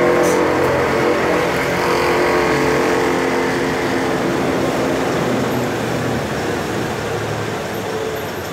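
A motor vehicle's engine running close by, a steady low hum that slowly fades away.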